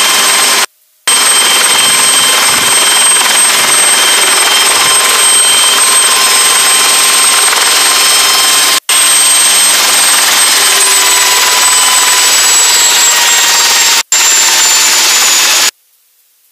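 Helicycle's turbine engine and rotor heard from inside the cockpit: a loud steady whine over a rushing noise, its pitch sinking slightly over the last few seconds. The sound drops out briefly near the start and twice more, then cuts off abruptly shortly before the end.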